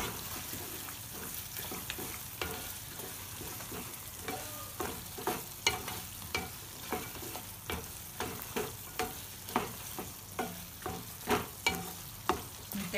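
A wooden spatula stirs soya chunks in thick sauce in a pan, over a steady sizzle of the sauce cooking. From about four seconds in, the spatula knocks and scrapes against the pan about twice a second.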